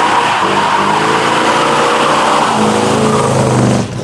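V8 muscle car doing a burnout: the engine revs up and down while the spinning rear tyres hiss and squeal. It cuts off abruptly near the end.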